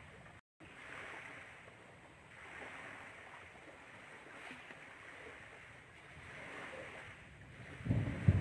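Outdoor rushing noise swelling and fading every second or two, cutting out completely for a moment about half a second in. Near the end a sudden low, choppy rumble breaks in and is the loudest sound.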